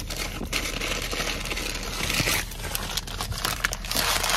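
Paper wrapping crinkling and rustling as it is handled close to the microphone.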